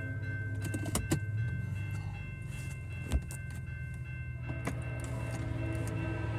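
Railroad grade-crossing warning bell ringing steadily, over the low idle of a car engine, with a few sharp clicks about one and three seconds in.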